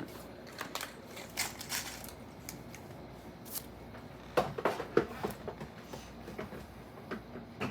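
Scattered clicks, taps and rustles of small food containers and packaging being handled, with a short cluster of sharper knocks about four and a half seconds in.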